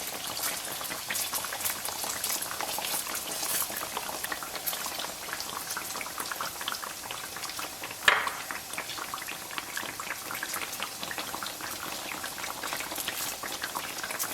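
Oil sizzling and crackling steadily around dough pieces deep-frying over medium heat, with one louder pop about eight seconds in.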